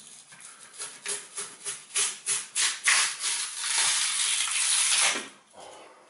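Cut section of a wooden arched door frame being torn loose from its polyurethane foam: a run of crackling, scraping tears that come faster and faster, merge into one continuous tear and stop suddenly about five seconds in.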